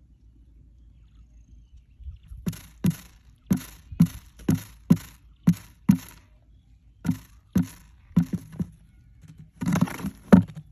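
Quail pecking grain off a cardboard trap lid: a run of sharp, irregular taps about two a second, ending in a louder, longer scuffle near the end.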